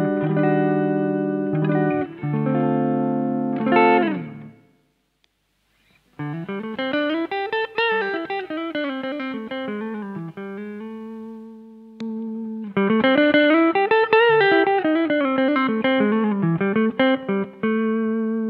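Semi-hollow electric guitar played through a Donner Dumbal Drive, a fairly light overdrive, with a little reverb from a Donner Verb Square. Sustained notes and chords ring first, then there is a short pause of about a second and a half. Two fast runs of notes follow, climbing and falling, each ending on a held note that rings out.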